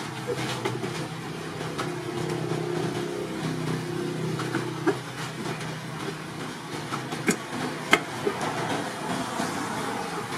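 Sharp clicks and knocks of a metal fan rotor and plastic being handled inside a plastic jug, the loudest three in the second half, over a steady low hum.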